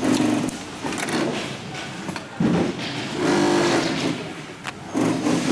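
Adler 205-370 heavy-duty cylinder-arm, triple-feed industrial sewing machine running in short bursts of stitching, stopping and starting about five times.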